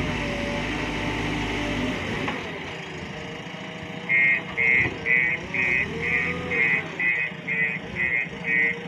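Heavy diesel engine running, its pitch wavering up and down. About four seconds in a reversing alarm starts beeping, about twice a second and louder than the engine.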